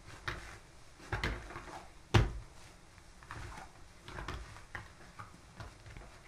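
Hands kneading and punching down a ball of risen yeast dough on a work surface: irregular soft thumps of the dough being pressed and slapped against the table, the loudest about two seconds in.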